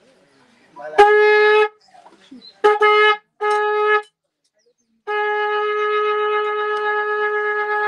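A horn sounding one steady note in four blasts: three short blasts, then a long held one.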